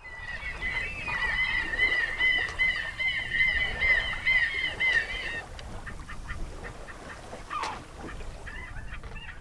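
A flock of water birds calling rapidly over one another for about five seconds, over a steady low rumble of wind and water; one short falling call follows near the end.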